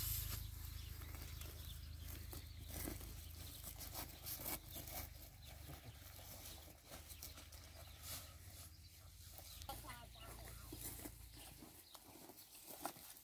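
Soft rustling and scraping of cut alfalfa being gathered and tossed with a wooden pitchfork, in scattered bursts over a low rumble that fades out near the end.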